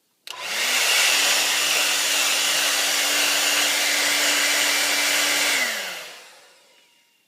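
Handheld hair dryer switched on, its motor quickly spinning up to a steady hum under a loud rush of air. After about five seconds it is switched off and winds down, the pitch falling as the air noise fades.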